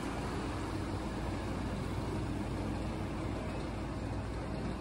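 Engine running steadily with a low rumble as a boat is launched off its trailer on a slipway.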